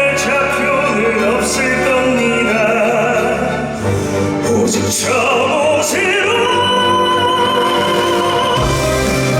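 Musical theatre singing with orchestral accompaniment: voices singing with vibrato over sustained instrumental backing, with a long held note from about six seconds in.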